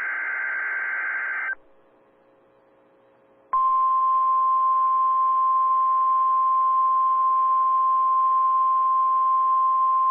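NOAA Weather Radio broadcast: the tail of a SAME digital header, a burst of buzzing data tones, cuts off about a second and a half in. After a short near-silent gap, the 1050 Hz warning alarm tone comes on about three and a half seconds in and holds one steady, loud pitch. It is sounding for the weekly alarm test.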